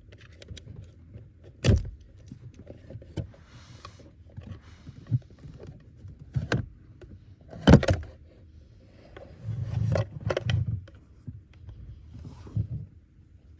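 Hand work on car interior parts: irregular sharp knocks and clicks of tools and plastic panels being handled, the loudest a little before the middle, with a stretch of low rumbling handling noise after it.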